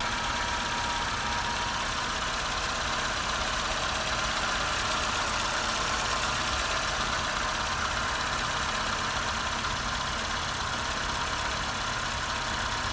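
A 2017 Renault Sandero Stepway engine idling steadily.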